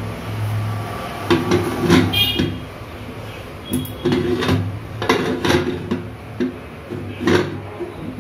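Aluminium pressure cooker lid being fitted and closed: a series of metal knocks, clanks and scrapes as the lid and handles are worked into place, with a short high scrape about two seconds in.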